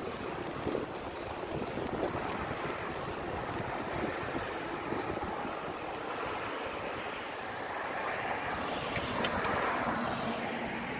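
Steady rush of wind and tyre noise from riding a bicycle along a street while filming, with a short run of sharp high ticks about six seconds in.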